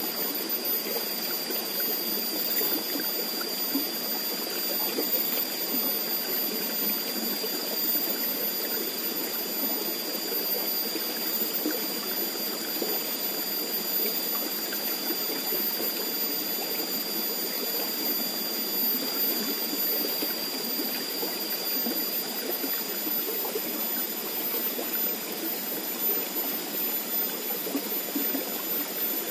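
Steady rushing and babbling of fast-flowing water in a shallow irrigation channel.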